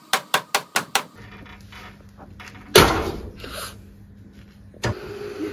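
Five quick sharp knocks, about five a second, then a faint low hum; about three seconds in a loud clattering crash that dies away over a second.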